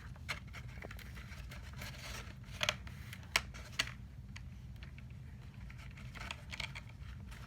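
Small scattered clicks and scratches from hands threading a plastic zip tie through a metal charm on a cork log, a few sharper clicks coming in a cluster midway, over a faint steady low hum.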